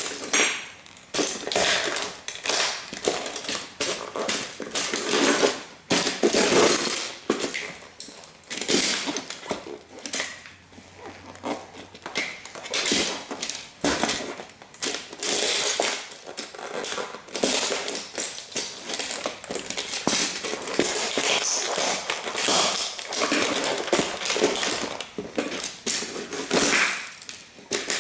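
Dr. Martens Jadon platform boots stomping on and crushing a Bugatti model toy car: an irregular run of crunching and cracking of its body and parts under the soles, easing briefly about ten seconds in.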